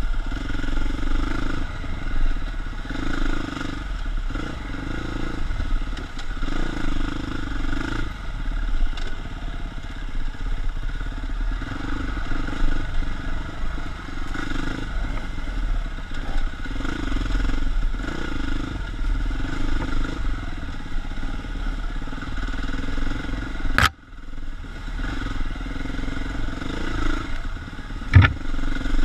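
KTM 350 dirt bike's four-stroke single-cylinder engine running along a tight trail, revving up and easing off in short bursts of throttle every second or two. A sharp click about three-quarters of the way through and a knock near the end.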